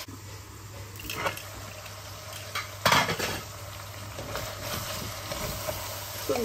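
Cooking utensil stirring food in a pan, with a few metal clinks against the pan (the loudest about three seconds in) over a faint sizzle of frying.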